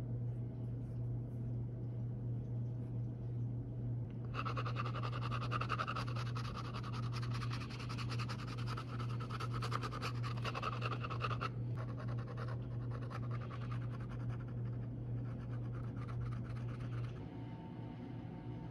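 Leather sheath edge being burnished by rubbing a hand slicker rapidly back and forth along it: a dense, scratchy rubbing that starts about four seconds in and stops abruptly past the middle, followed by fainter, patchier rubbing. A steady low hum runs underneath.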